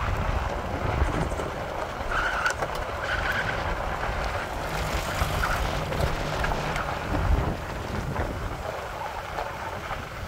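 Vehicle driving over a rough unpaved mountain road: a steady rumble of tyres and running gear, with scattered faint clicks and wind noise through the open window.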